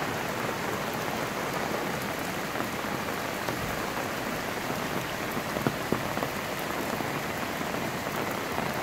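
Steady rain falling on wet ground and pavement, with a few sharp ticks of drops landing close by.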